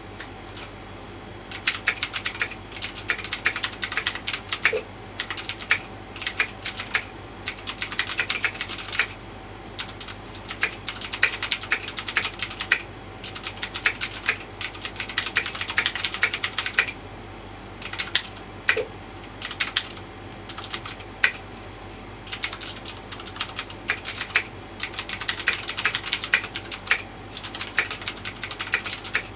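Filco mechanical keyboard with clicky Cherry MX Blue switches being typed on fast. Dense runs of sharp key clicks come in bursts of a few seconds with short pauses between, starting about a second and a half in.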